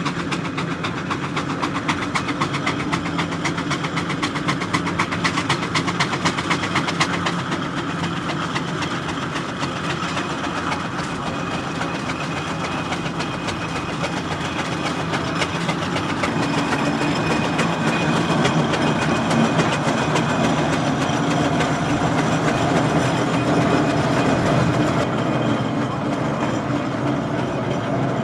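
Steam traction engines, among them the Super Lion crane engine, working under load hauling a timber trailer: a rapid rhythmic clatter of exhaust beats and motion over a steady mechanical rumble, the clatter most pronounced in the first part.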